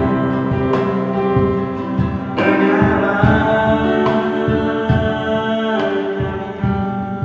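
A small acoustic band playing a song: a young man sings over a strummed acoustic guitar, with cajón beats and sustained Yamaha keyboard chords.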